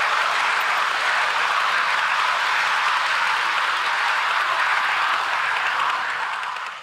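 OO gauge model Mk1 coaches rolling past: a steady rushing rattle of small metal wheels on the rails, fading away near the end as the last coach clears.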